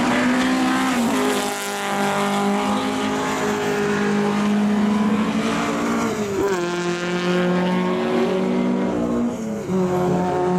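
Volkswagen Beetle rallycross cars' engines running hard at high revs. The engine note drops and settles at a new pitch about a second in, again about six and a half seconds in, and once more near the end, as the drivers shift or lift.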